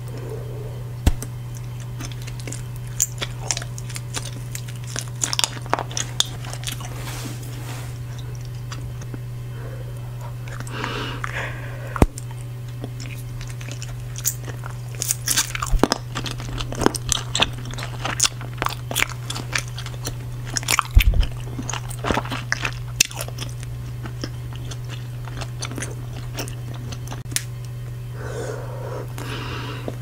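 Close-miked bubble gum chewing and mouth smacking: wet clicks and snaps, few at first, coming thick and fast through the middle, then thinning out, over a steady low hum.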